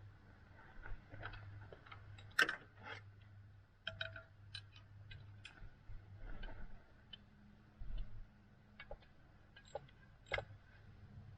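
Irregular light clicks and taps of hand tools and parts being handled during work on the thermostat housing, over a faint steady low hum.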